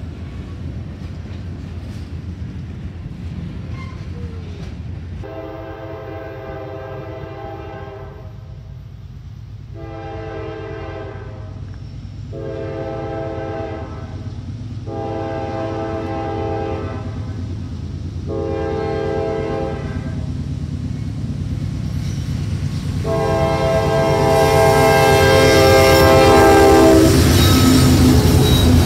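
Diesel freight locomotive's chord air horn sounding six blasts, the last one long, as the train approaches. A steady low rumble of rail cars rolling past runs underneath. Near the end the locomotive passes close by and the engine and wheel noise grow loud.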